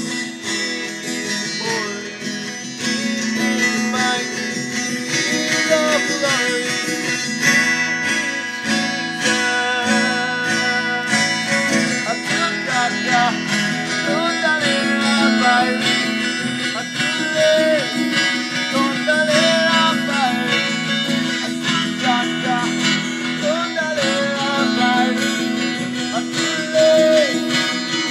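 A man singing an Ogoni song while he strums an acoustic guitar.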